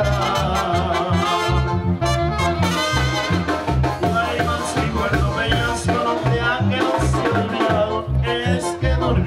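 Brass band music with trumpets and trombones over a steady, stepping bass line.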